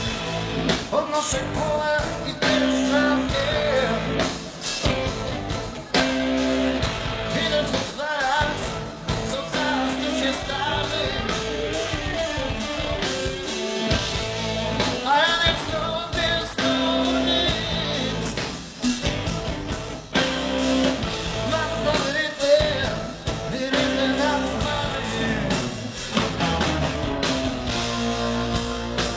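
Blues-rock band playing live: electric guitars, bass and drums with a lead singer, recorded from among the audience.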